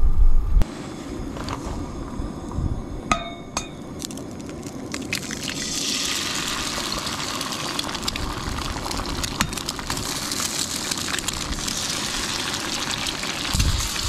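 Eggs sizzling as they fry in a cast iron skillet on a propane camp stove, the crackle building a few seconds in and then holding steady. Two sharp ringing clinks come about three seconds in.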